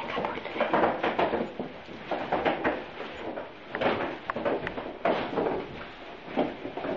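Gift bags and wrapped presents being handled: irregular rustling of paper with light knocks.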